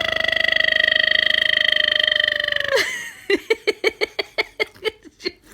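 An adult making a silly baby-talk noise: a long, croaky, burp-like drawn-out vowel held for about three seconds, then a quick run of short repeated syllables, about five a second.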